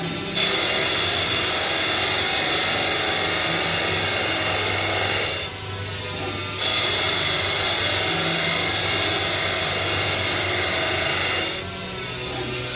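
Tree UP-1000 CNC lathe turning a cast iron backplate: a loud, steady high whine as the tool cuts. It drops away for about a second twice, about halfway through and near the end, between cutting passes.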